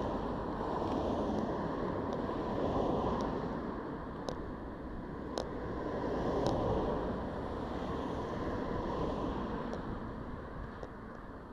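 Wind rushing and buffeting over a head-mounted camera's built-in rear microphone while the wearer walks, rising and falling in waves. A faint steady high tone runs underneath, and there are a few sharp clicks.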